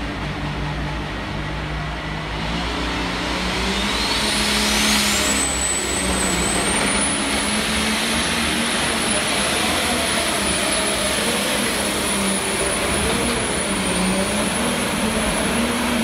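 Pulling tractor's engine under full load, running hard with a high turbo whine. The whine climbs steeply in pitch over about two seconds, a few seconds in, then holds high and steady.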